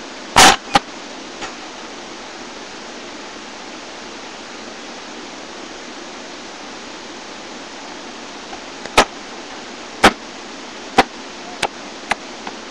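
A basketball thudding on the ground in a run of bounces that come closer and closer together as it settles, after one loud bang about half a second in. A steady hiss runs underneath.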